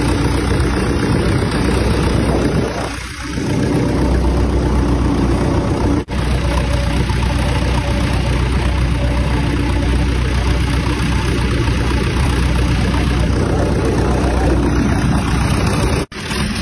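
Fishing boat's diesel engine running steadily under way, with wind and rushing water over it. The sound drops out for an instant about six seconds in and again near the end.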